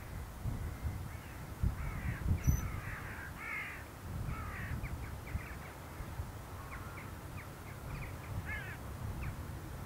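Crows cawing several times, most densely in the first half, with a low, irregular rumble underneath.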